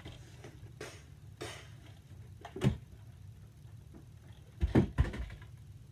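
A few dull knocks and thumps over a steady low hum: one about two and a half seconds in, then a quick cluster of three near the end.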